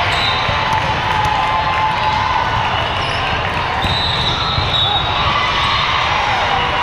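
Steady din of a large, busy tournament hall with many volleyball courts in play: crowd chatter, with the thuds of balls being hit and bounced, and a few high held tones about a second long.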